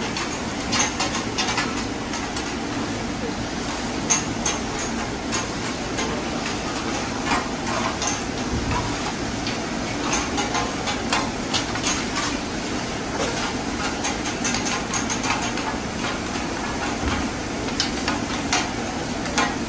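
Long metal spatulas scraping and clacking on a large round flat-top griddle as cooks push and turn food, with irregular sharp knocks over the steady sizzle of frying.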